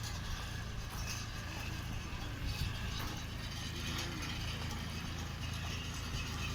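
A machine running with a steady low hum, with scattered light clicks and ticks over it.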